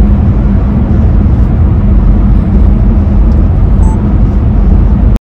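Steady low rumble of a car heard from inside the cabin. It cuts off abruptly near the end.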